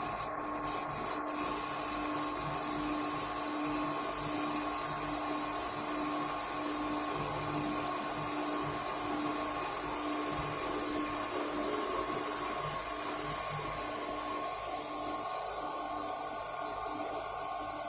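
Homemade CNC router running steadily, its spindle giving a high, drill-like whine over a continuous cutting noise, with a lower hum that pulses evenly.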